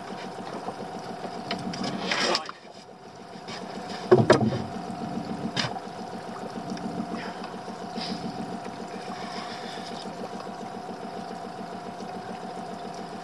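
Small boat's outboard motor idling steadily. There is a short loud rush of noise about two seconds in, and a loud knock about four seconds in.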